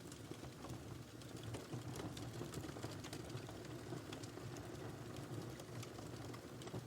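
Wood fire in a fireplace burning with a steady low rumble and frequent irregular sharp crackles and pops.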